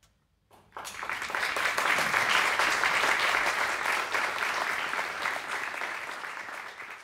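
Audience applauding. The clapping breaks out suddenly after a brief silence about a second in, then gradually dies down near the end.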